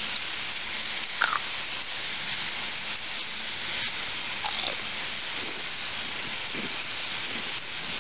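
Cut potatoes frying in hot oil in a frying pan: a steady sizzle, with a sharp pop of spattering oil about a second in and another about four and a half seconds in.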